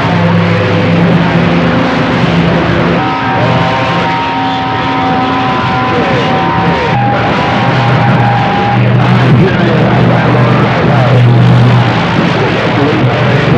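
CB radio receiver on 27.025 MHz (AM channel 6) putting out loud hissing static with overlapping carriers and garbled, unreadable signals. From about 3 to 9 seconds in, steady heterodyne whistles sound over the noise.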